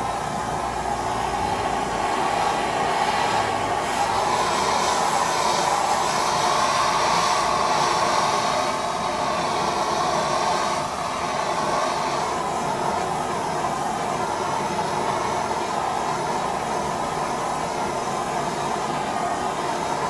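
Handheld blowtorch flame hissing steadily as it is played over oil paint on a canvas; the hiss grows brighter for several seconds in the middle, then settles.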